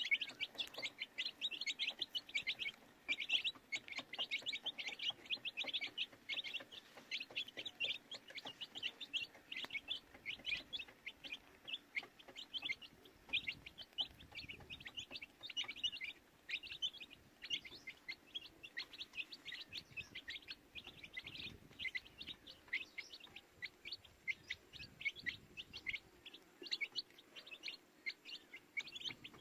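A brood of baby chicks peeping: many short, high chirps overlapping, several a second, running on without a break.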